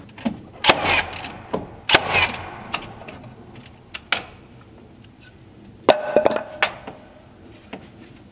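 Wooden trim boards knocking and clattering as they are handled and set against the wall: sharp knocks with a rattle about one and two seconds in, a single knock near four seconds, and a quick run of knocks with a brief ring about six seconds in.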